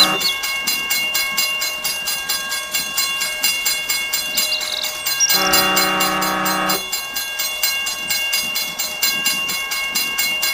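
Toy steam train sound effects: a steady chugging clatter, about four beats a second, with one electronic whistle blast lasting about a second and a half, starting a little past the middle.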